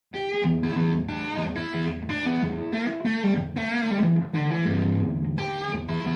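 Electric guitar intro music: a run of picked notes and chords that starts just after the opening.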